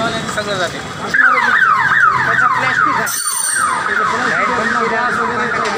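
Emergency vehicle siren in a fast yelp: a falling wail repeated about three times a second, starting about a second in.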